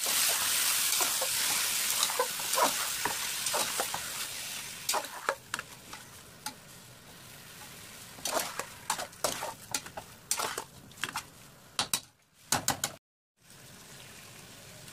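Mutton pieces frying in hot mustard oil in an aluminium pressure cooker: a loud sizzle that dies down after about four seconds. A metal spatula scrapes and clicks against the pot as the meat is stirred.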